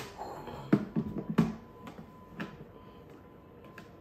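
Several sharp knocks and taps in the first two and a half seconds, as a small glass bowl is knocked against the plastic bowl of a food processor to empty chopped parsley into it.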